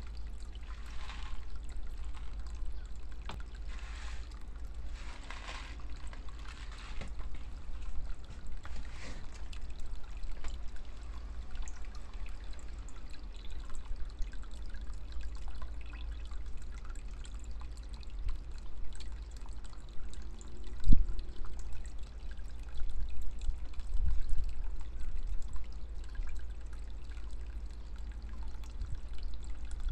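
Thin stream of water falling from a bamboo spout into a shallow pond, trickling and splashing steadily. A single dull thump comes about two-thirds of the way through.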